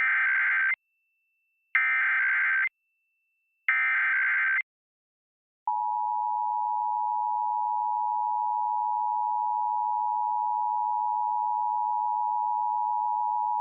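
Emergency Alert System tones for a Required Monthly Test: three bursts of SAME digital header data, each about a second long and about a second apart. About six seconds in, the steady EAS two-tone attention signal (853 and 960 Hz) begins and holds.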